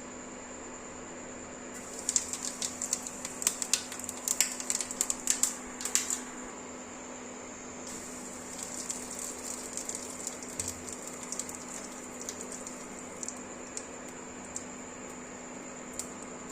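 Quick, irregular clicks and taps of kitchen work, loud and dense for a few seconds, then fainter and sparser, over a steady background hum.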